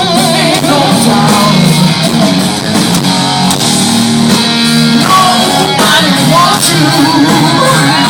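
Live rock band playing loud, with electric guitar and a singing voice over a steady beat, recorded in the crowd.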